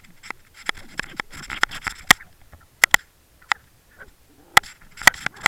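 Irregular sharp clicks and taps, about a dozen, with faint scraping between them.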